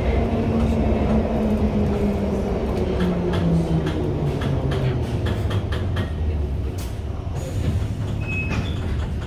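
A London Underground 1972 Mk 2 tube stock train running, heard from inside the carriage: a steady rumble with a motor whine that falls in pitch over the first few seconds and then holds low. Through the middle and latter part come a series of sharp wheel clicks over the track.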